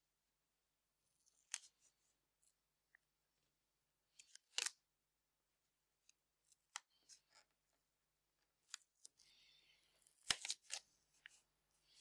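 Paper masking tape crackling and rustling in short, scattered bursts as it is handled and pressed along a car door moulding, the loudest crackles about four and a half seconds in and again around ten seconds.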